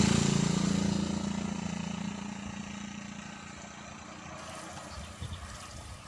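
A motor vehicle's engine running with a low hum, loud at first and fading steadily over the first few seconds.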